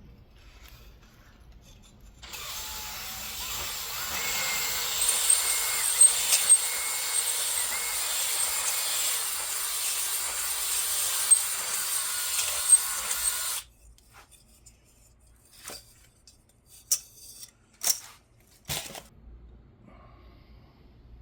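Electric drill spinning a cylinder hone in the oiled bore of a 1979 Honda XR500 cylinder, scraping the wall to cut the remaining glaze and put in a cross-hatch pattern. It runs steadily for about eleven seconds and stops suddenly. A few short clicks and knocks follow near the end.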